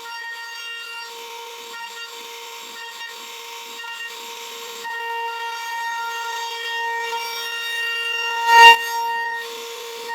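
CNC router spindle running at a steady whine while the bit cuts into wood. The cutting grows louder about halfway through, and one sharp, loud knock comes near the end.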